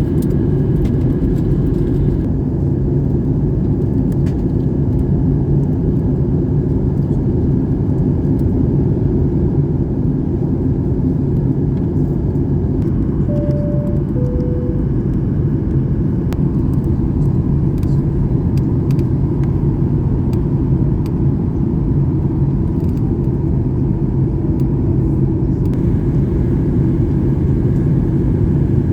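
Steady low rumble of engines and airflow inside a Boeing 737 MAX 8 cabin during descent. About halfway through, a two-tone cabin chime sounds once, high note then lower note.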